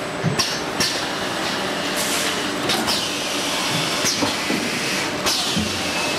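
Automatic bottle shrink-wrapping machine running: a steady mechanical noise with irregular sharp clacks and short bursts about every second.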